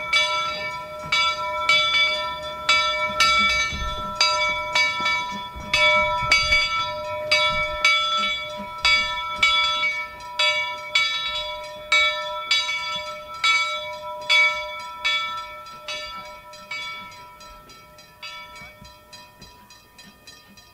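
Steam locomotive's bell ringing steadily as the engine moves, about one and a half strokes a second, fading over the last few seconds.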